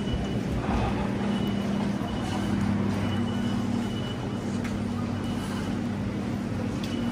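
Steady low mechanical hum of an idling electric train, with a faint high whine that comes and goes.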